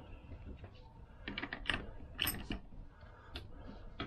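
Scattered metallic clicks and small runs of quick ticks from a wrench working the nut on a Vespa PX crankshaft, tightened to pull the crank into its bearing in the casing.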